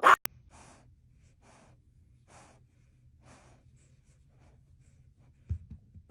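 A short loud sound at the very start, then soft, hissy breaths about once a second over a low hum.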